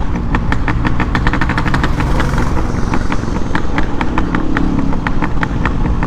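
Yamaha RX100's two-stroke single-cylinder engine running under way, with a rapid, irregular crackle over the engine note.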